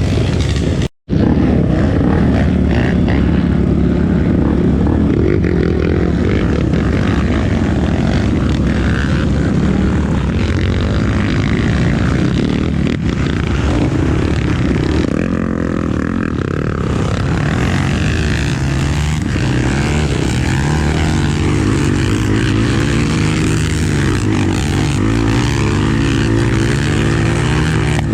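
Engine of a Tornado 300cc trail motorcycle running under way, its revs rising and falling, with rushing noise over it. The sound drops out very briefly about a second in.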